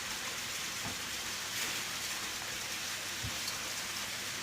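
A steady, even hiss like rain or running water, with a couple of faint soft knocks.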